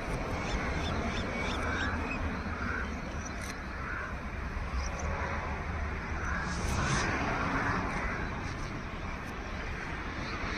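Bird calls, short and coarse, repeated every second or few, over steady outdoor background noise and a low rumble.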